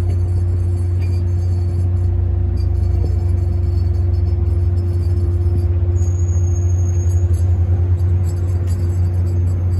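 A Caltrain commuter train drawing near with a steady low diesel drone and rumble that starts to pulse and swell from a few seconds in. A brief high squeal comes about six seconds in.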